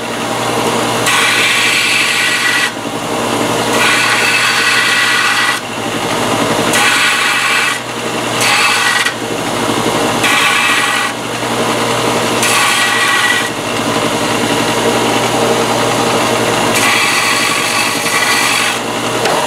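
Bench belt sander running steadily, its sound turning to a harsher grinding in repeated passes of a second or two each time a small cut sheet-steel patch is pressed against the belt to shape it.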